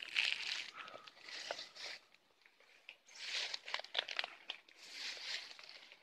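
Rustling and crackling of dry leaves and bamboo undergrowth being brushed and trodden through, in three uneven bursts.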